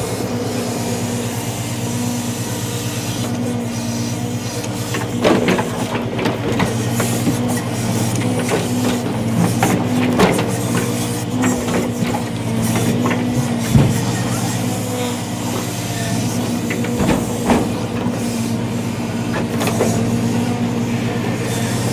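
Peterbilt log truck's diesel engine running steadily, driving the hydraulic knuckle-boom loader as it swings, with a handful of sharp knocks and clunks scattered through.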